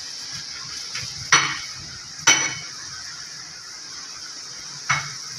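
A metal pot of water with apple peels boiling steadily with a hiss, and three sharp, ringing metallic clinks of a utensil against the pot, about a second in, a second later, and near the end.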